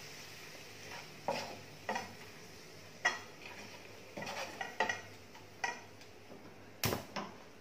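Wooden spatula stirring green chillies in a thick yogurt masala in a non-stick kadhai: soft scraping with a short knock against the pan every second or so. One sharp click near the end is the loudest sound.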